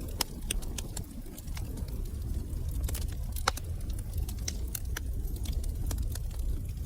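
Wood fire crackling in a fireplace: irregular sharp pops and snaps over a steady low rumble of burning, with one louder pop about three and a half seconds in.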